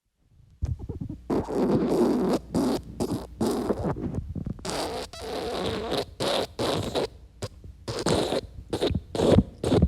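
A run of wet fart sound effects: many short, rapid sputtering blasts, one after another with brief gaps, starting about half a second in.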